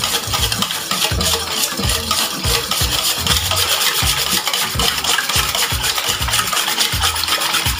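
Wire whisk beating a thin liquid cake batter in a stainless steel bowl, the wires scraping and tapping against the metal in quick, even strokes.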